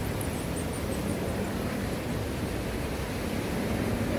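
Small waves washing onto a sandy beach, with a steady low rumble underneath.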